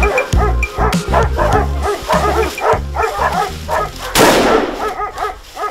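Hunting hounds baying and yelping in rapid repeated calls over background music, then a single rifle shot about four seconds in, fired at a driven wild boar.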